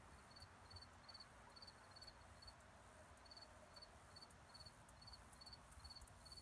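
Near silence with a faint cricket chirping steadily in the background, about two short chirps a second.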